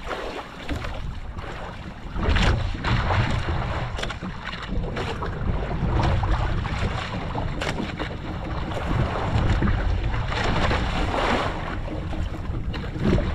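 Wind buffeting the microphone over the wash of the sea around a small boat, with no engine tone. It grows louder about two seconds in and swells and eases after that.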